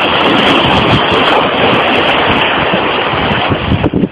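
River water rushing and splashing over rocks, loud and steady, with wind buffeting the microphone; it dips suddenly near the end.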